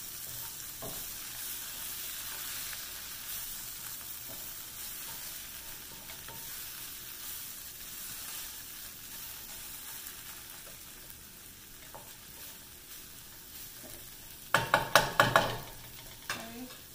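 Tofu cubes frying and sizzling in oil and red curry paste in a skillet, stirred with a wooden spatula, the sizzle easing off a little. Near the end, a quick run of about half a dozen sharp knocks.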